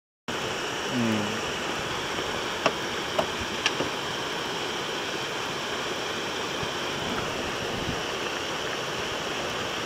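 Mountain stream water rushing steadily over rocks, with a few sharp clicks and a brief falling tone about a second in.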